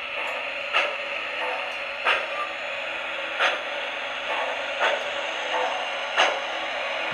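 MTH model 2-8-0 steam locomotive's electronic sound system playing slow steam chuffs, five evenly spaced about a second and a half apart, over a steady hiss as the engine runs slowly along the track.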